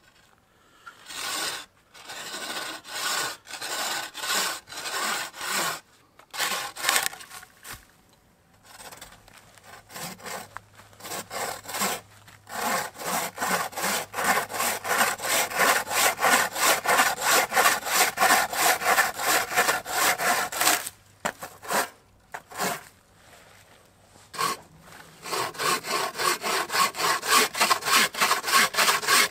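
Bucksaw cutting through a log in rapid back-and-forth rasping strokes. It saws in runs of several seconds, with two short pauses, the second about three quarters of the way in.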